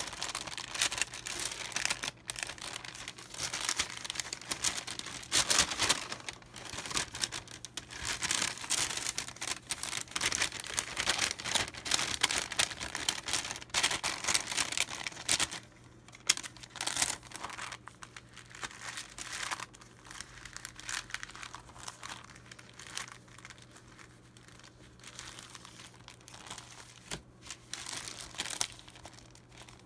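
Brown paper produce bags from a Dutch greengrocer rustling and crinkling as they are handled, shuffled and turned over. The rustling is busy and loud for about the first half, then becomes sparser and softer.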